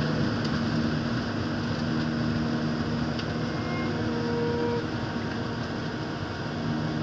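Steady cabin noise of a jet airliner in flight: an even rush of engine and airflow noise with a constant low hum.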